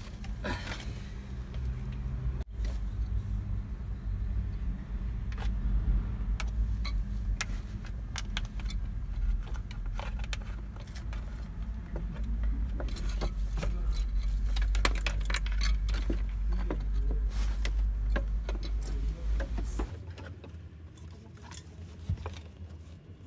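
Clicks, knocks and rattles of the plastic evaporator housing and cover of a truck's blower fan unit being handled and fitted into place, over a steady low rumble that stops suddenly near the end.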